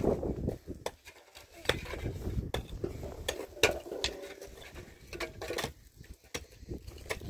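Irregular run of sharp clinks and knocks of kitchen utensils against pots and dishes, a dozen or more strikes, some ringing briefly.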